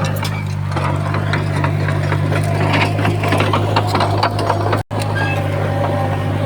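Komatsu D31P crawler bulldozer's diesel engine running steadily under load, with the rattle and clank of its steel tracks and blade over it. The sound cuts out for an instant about five seconds in.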